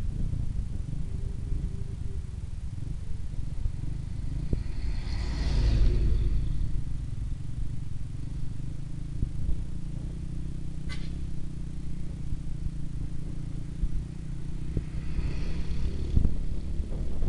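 Steady low rumble of a motorcycle riding along a highway, engine and wind noise heard from the back seat. Other vehicles rush past about five seconds in and again near the end, with a brief high chirp midway.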